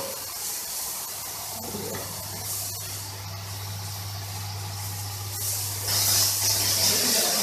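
Motor-driven HTP high-pressure pump of a milking machine running with a steady low hum, while its water jet hisses as it sprays onto the shed floor. The spray hiss grows louder about six seconds in.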